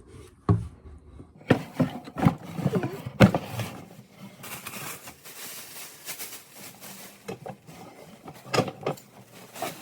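Knocks, clatter and scraping of kitchen items being handled and packed into boxes. A sharp knock comes about half a second in, a quick run of knocks about two to three seconds in, and another pair near the end.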